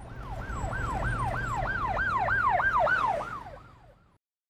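A siren yelping: quick falling wails, about four a second, over a low rumble, fading away near the end.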